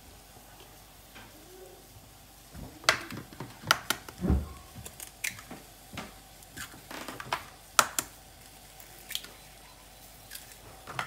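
Eggs being cracked one after another against a bowl: a run of sharp taps and shell cracks, with one duller knock about four seconds in.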